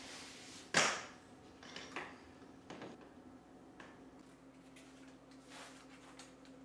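A single sharp knock about a second in, then a few lighter clicks, over a steady low hum.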